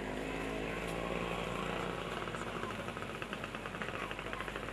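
Murmur of a large crowd of people, with a fast, even rattling pulse joining about two seconds in and stopping near the end.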